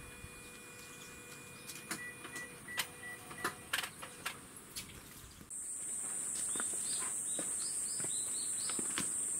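A few sharp clicks and taps. Then, about halfway through, a steady high-pitched insect drone starts abruptly, with a run of short, falling chirps over it.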